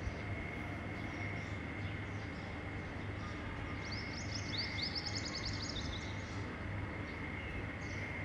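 Steady low hum and hiss with a thin high whine, and a quick run of high chirps, a bird trilling, from about four seconds in to about the middle.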